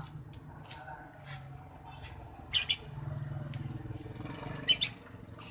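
Lovebirds giving short, high-pitched chirps in quick clusters of a few at a time: near the start, about two and a half seconds in, and again near the end.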